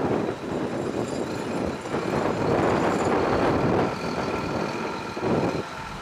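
Heavy earthmoving machinery at work: a diesel engine running under load, its noise swelling and easing several times.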